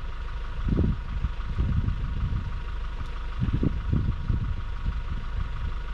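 Toyota Hilux engine idling steadily, with irregular low buffets of wind on the exterior-mounted microphone about a second in and again several times later.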